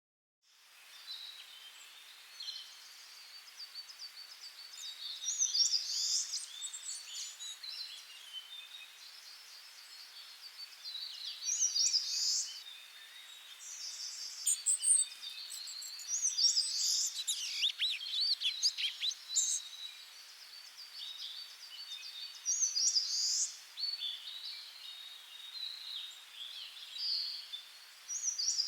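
Wild birds singing and calling over a faint steady hiss, with one song phrase coming back about every five to six seconds and a flurry of quick sliding calls a little past the middle.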